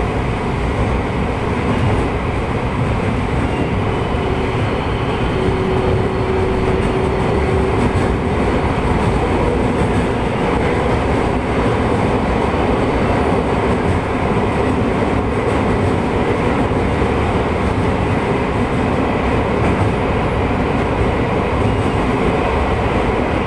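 Steady running noise of a 223-series electric train in motion, heard from on board: an even rumble of wheels on rail with no change in speed.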